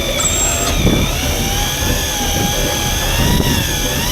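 Electric fishing reel's motor whining as it winds in line under the load of a hooked fish, its pitch wavering slowly up and down, over a steady low rumble.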